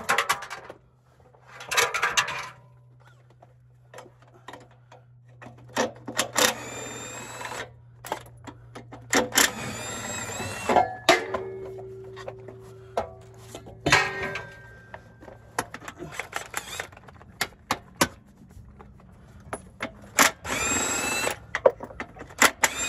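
Cordless impact wrench run in four short bursts, each with a rising whine as the motor spins up, loosening bolts while an automatic transmission is being removed. Sharp metallic clicks and clinks come between the bursts.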